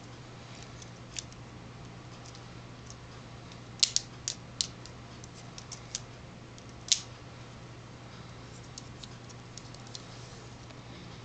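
Plastic Lego Technic parts of a model hand clicking and clacking as its fingers are worked by hand. The clicks are sharp and scattered, with a busy cluster about four seconds in, a loud one near seven seconds and fainter ticks after.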